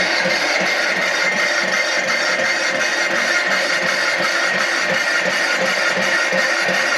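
Milling machine running with a Wohlhaupter boring head: a steady whirr with a low pulse repeating about three times a second.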